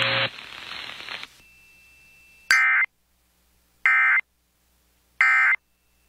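NOAA Weather Radio SAME end-of-message code: three short, identical bursts of digital data tones (the 'NNNN' sign-off of the alert) about 1.3 seconds apart. They follow radio static that cuts off just after the start.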